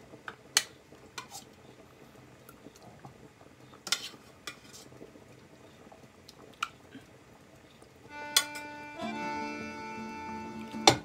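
Metal spoon clinking against a stainless steel pot and a ceramic bowl while meatballs in sauce are served out: a scatter of sharp knocks, the loudest near the end. Accordion music comes in about eight seconds in.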